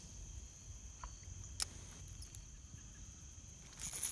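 Faint low rumble of wind on the microphone, with a single sharp click about a second and a half in. Near the end comes a rustle and quick ticking as a spinning reel is worked when a fish strikes hard.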